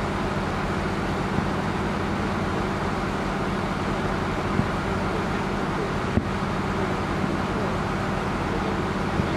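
A riverboat's engine running with a steady low drone, with a few faint thumps of distant fireworks bursting.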